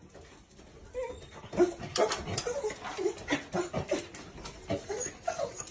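Corgi whining and yipping in short, rapid cries, starting about a second in, with clicks and scrabbling mixed in: an excited greeting of its returning owner.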